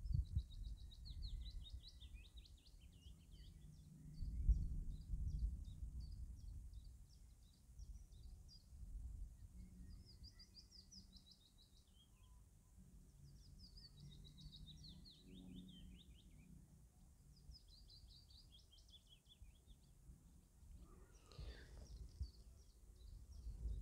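Small songbirds singing in repeated short, rapid trilling phrases every few seconds, over a low, uneven rumble.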